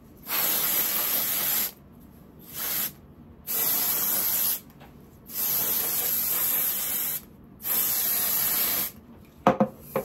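Aerosol can of Dove Volume & Fullness dry shampoo sprayed into the hair at the roots. There are four steady hisses of one to two seconds each, with a short weaker puff between the first and second.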